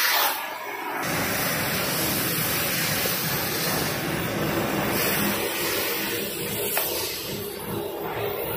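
Oxy-fuel cutting torch hissing steadily as it burns through steel, with a low steady hum underneath.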